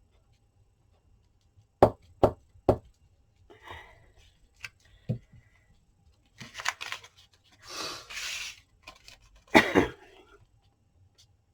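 Paper crafting at a table: three quick knocks about two seconds in, then paper and tools being handled with rustling and scraping, and a louder thump near the end.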